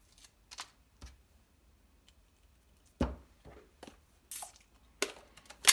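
Clear acrylic stamp block and plastic ink pad being handled to ink a stamp: scattered taps and clicks, a knock about three seconds in, a short scrape after it, and a sharp click near the end, the loudest.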